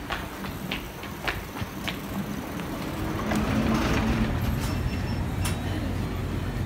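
Footsteps walking at an even pace, a sharp step about every 0.6 seconds. A general noise of a shop interior swells about three seconds in, over a steady low hum, as the walker enters a convenience store.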